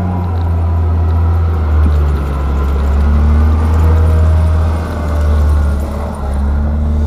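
Diesel engine of a Volvo wheel loader, fitted with a snow-plough blade, running with a strong steady low drone as the machine pushes snow and passes close by.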